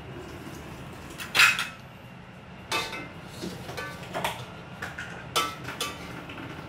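Metal kitchenware clinking and knocking: several sharp clinks, each with a brief metallic ring, the loudest about a second and a half in.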